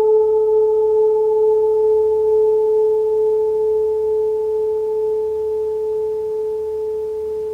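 A gong holding a single steady humming tone with a few overtones, slowly fading, with no new strikes.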